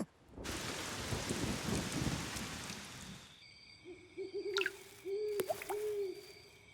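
A rush of rain-like noise for about three seconds, then an owl hooting several times in short hoots over a faint steady high tone, as cartoon sound effects.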